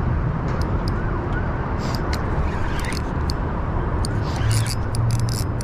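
Splashing from a hooked carp being brought to the landing net, in short bursts through the second half, over a steady low rumble.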